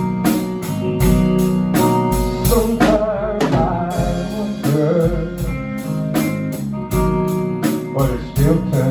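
Music: a song with guitar over a steady drum beat.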